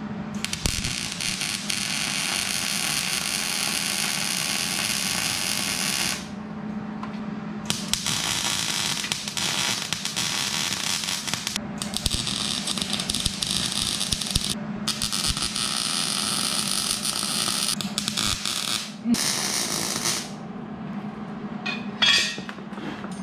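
Wire-feed MIG welder arc crackling and hissing in stretches of a few seconds, starting and stopping sharply between welds, over a steady low hum.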